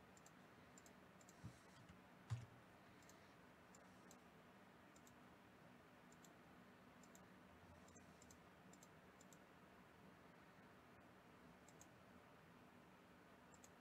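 Near silence, with faint computer mouse clicks scattered through it and a soft thump about two seconds in.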